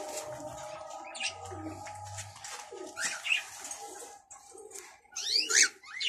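Doves cooing in short repeated calls, mixed with sharper high chirps from small cage birds; the loudest chirps come near the end.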